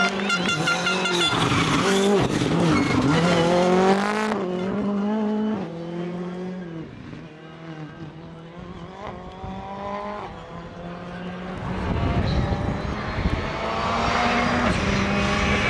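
Rally car engine at hard throttle, revving up and dropping back again and again as it shifts through the gears. It fades into the distance around the middle and comes back loud near the end.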